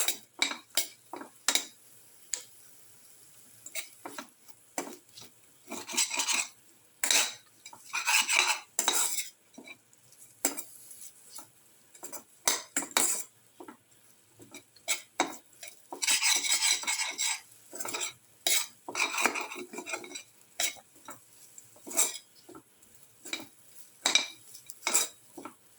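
A cooking utensil stirring chicken pieces in a pan, scraping along the pan and knocking against it in irregular strokes. There are several longer scrapes, the longest a little past halfway.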